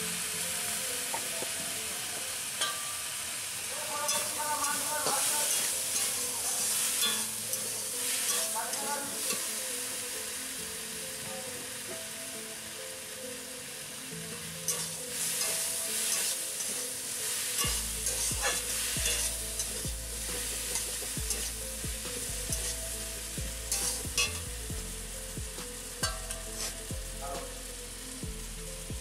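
Pui saag (Malabar spinach) sizzling as it fries in an iron kadai, with a metal spatula scraping and stirring it in short clicks and scrapes over a steady hiss.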